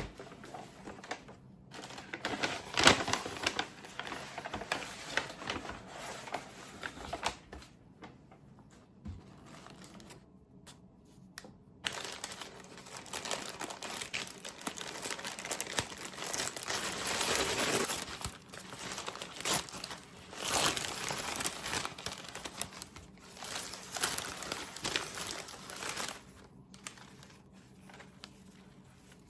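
Irregular crinkling and rustling, stopping briefly about ten seconds in and then going on.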